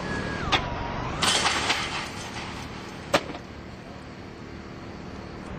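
Skateboard wheels rolling on pavement with a steady low rumble. Two sharp clacks of the board come about half a second and about three seconds in, with a burst of hiss about a second in.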